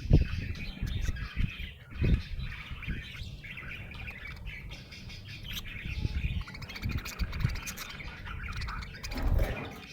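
Budgerigar chirping and chattering on and on, with a few low thumps, the loudest at the start and about two seconds in.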